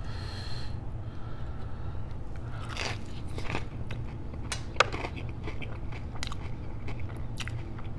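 Close-miked eating of a breaded fried chicken finger: a bite into the crust in the first second, then mouth-full chewing with scattered wet crackles and clicks, the sharpest a little past halfway. A steady low hum runs underneath.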